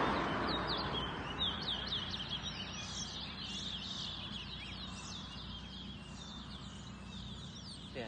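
Caged towa-towa seed finches singing in a song contest: a quick, continuous run of high chirps and short sliding whistled notes over a low background rumble.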